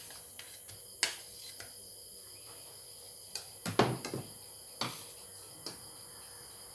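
Scattered clinks and knocks of a spoon and bowls being handled while fruit is spooned into a clay mortar. The loudest is a thump about four seconds in. Under them is a steady background hiss with faint insect chirring.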